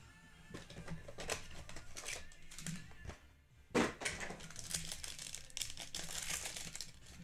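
Foil football-card pack crinkling as it is handled and torn open by hand, with irregular crackles and one sharp knock about four seconds in.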